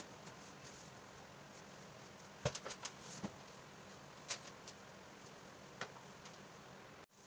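Quiet room hiss with a few faint clicks and taps: a short cluster about two and a half seconds in, then single clicks, and the sound cuts off suddenly near the end.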